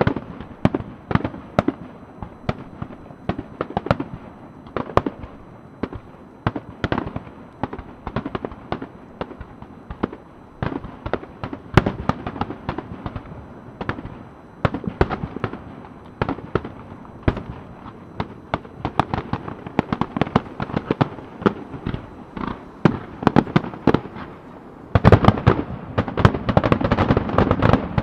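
Fireworks display: aerial shells bursting in quick succession, several sharp bangs a second, building to a denser, louder barrage near the end.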